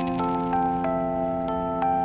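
Background music: a slow melody of bell-like struck notes, in a glockenspiel or music-box style, each note ringing on under the next.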